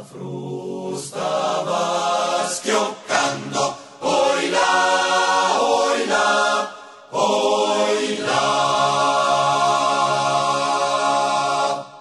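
Choir singing a slow Italian mountain song a cappella, holding long chords, with a short break about seven seconds in.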